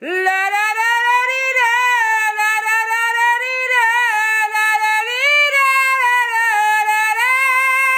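A toddler crying in one long unbroken wail, starting suddenly with a rising pitch and then held with a slight wavering.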